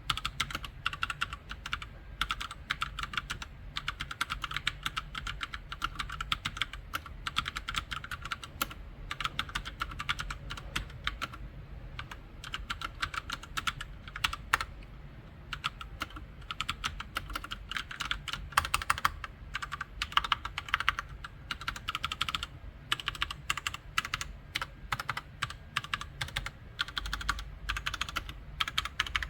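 Typing on a SKYLION G300 mechanical keyboard with red (linear) switches: a fast, continuous clatter of keystrokes with no pauses.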